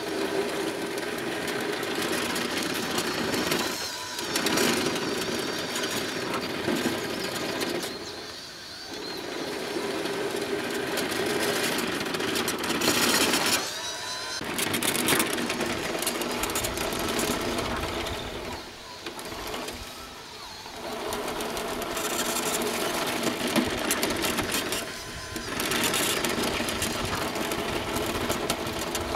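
Scratch-built radio-controlled model bulldozer working, its motors and gearing whining as it pushes sand, with several short pauses where it stops and then starts again.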